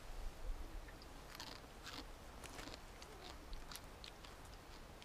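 Faint crunching and chewing of dry, uncooked Mama instant noodles: a run of short, crisp, irregular crunches.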